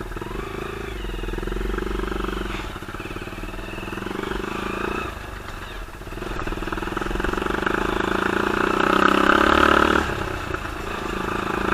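Homemade off-road buggy's small engine running with its speed rising and falling. It builds to its loudest about nine seconds in, then drops off sharply about a second later.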